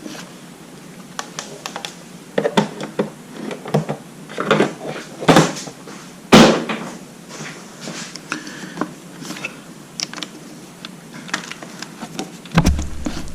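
Hands rummaging among the plastic panels and wiring under a motorcycle seat: scattered clicks and rustles, with two sharper knocks a little past the middle, the second the loudest.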